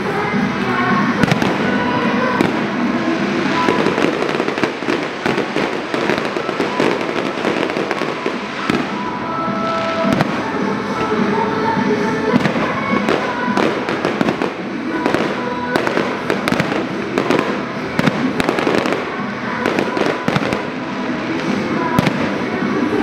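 Aerial fireworks shells launching and bursting in quick succession, a dense, continuous run of bangs.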